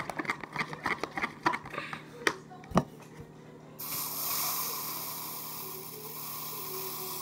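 A utensil stirring slime in a plastic tub: quick irregular clicks and scrapes against the plastic, ending in one sharp knock just before 3 s. From about 4 s a steady hiss takes over.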